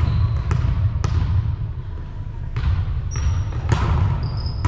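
A ball thudding on a hardwood gym floor about six times at uneven intervals, each thud echoing in the hall, with a few short sneaker squeaks and a steady low rumble underneath.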